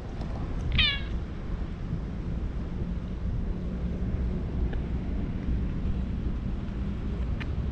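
A calico cat gives one short meow about a second in, over a steady low background rumble.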